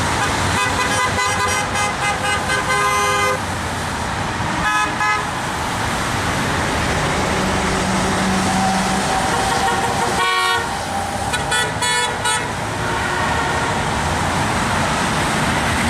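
Steady rush of highway traffic, with car horns honking several times: a run of quick beeps in the first three seconds, a short honk about five seconds in, and more beeps between about ten and thirteen seconds in. The honks are drivers answering the signs held up by protesters on the overpass.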